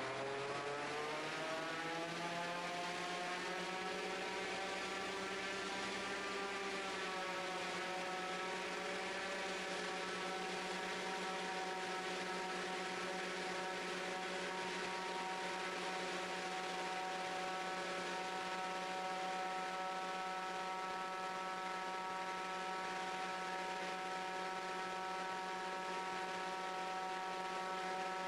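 The Raptor prototype's diesel engine and pusher propeller at a static full-power run-up, brakes held. The pitch climbs over the first few seconds as the engine comes up to power, dips slightly about seven seconds in, then holds steady.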